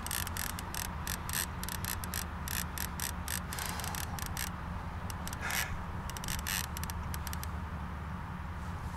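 Fishing reel clicking in rapid runs under the load of a big sturgeon on the line, the clicks thinning out about halfway through. A steady low hum sits underneath.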